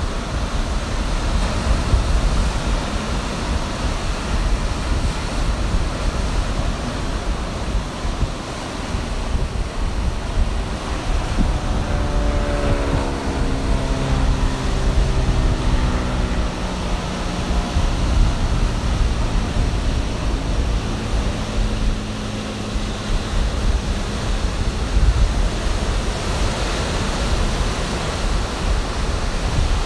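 Ocean surf breaking and washing up the beach, with wind buffeting the microphone. From about twelve seconds in, a droning engine passes, falling in pitch and then holding steady before fading out about ten seconds later.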